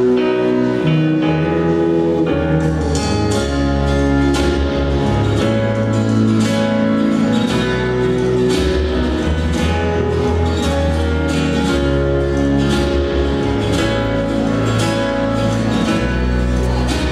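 Instrumental music with a plucked guitar over a bass line and a steady beat, played back as the soundtrack for a stage performance.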